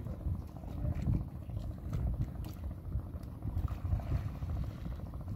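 Wind buffeting the microphone in a low, uneven rumble, with water lapping against the hull of a small wooden fishing boat.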